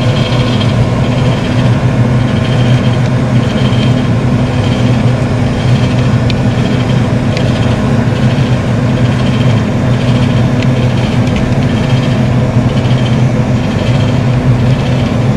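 Steady, loud, low hum of a running engine or motor, unchanging, with a couple of faint clicks about six and seven seconds in.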